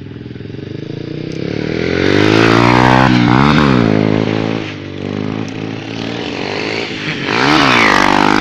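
Small single-cylinder trail motorcycle engine revving hard as the bike is ridden past in a wheelie, its pitch climbing and dropping with the throttle. It is loudest from about two to four seconds in and swells again near the end as the bike passes close.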